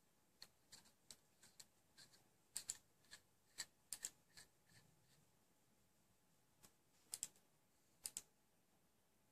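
Faint, irregular small clicks and ticks of fingers handling the Kayfun atomizer's metal chimney as it is screwed down onto the deck. There is a quick run of clicks in the first half and a few more near the end.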